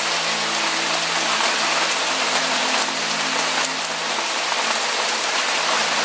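Steady rain, an even dense hiss of falling drops, over soft background music of low held notes that shift every second or two.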